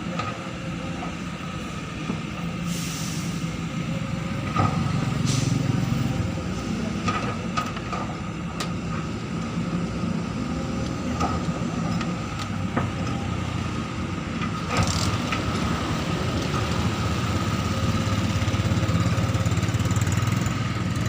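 Diesel engines of excavators running and working, the drone rising and easing as they load up, with a few short hissing bursts.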